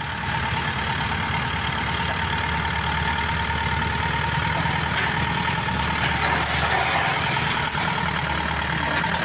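Tanikaya Megatron HT88 combine harvester's diesel engine running steadily as the machine works its way down the truck's tilted bed on its rubber tracks, with a steady high whine over the engine note.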